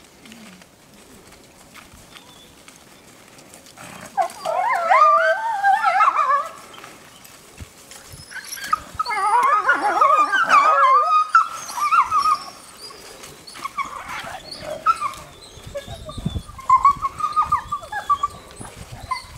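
Grey wolves crying out in high, wavering whines and yelps while a pack jostles over one wolf pinned on its back in the snow. The cries come in bouts: one begins about four seconds in, a longer one follows in the middle, and shorter cries come near the end.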